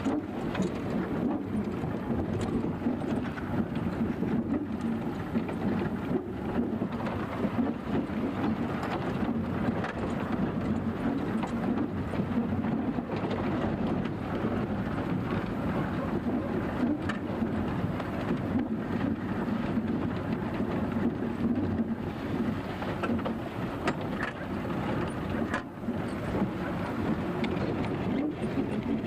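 A motor vehicle running steadily: engine and road noise without a break, with some wind on the microphone.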